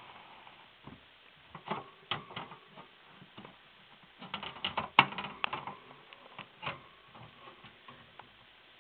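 Irregular clicks and taps on a hamster cage's wire bars and plastic, a scattered run of sharp knocks that grows busier and louder in the middle, with one loudest click about halfway through.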